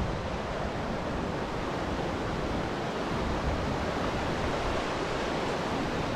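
Steady rush of whitewater river rapids.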